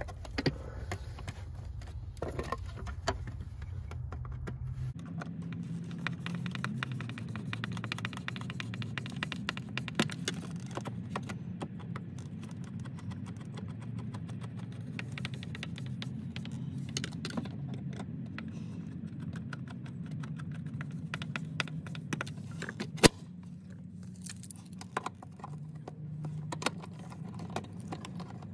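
Small metal clicks and rattles of tools and parts being handled, over a steady low hum that changes about five seconds in. One sharp click near the end.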